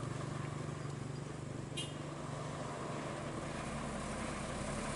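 Mitsubishi Fuso truck's diesel engine running steadily, a low drone with a fine rapid pulse, as it hauls an excavator on a low-loader trailer. A faint brief click about two seconds in.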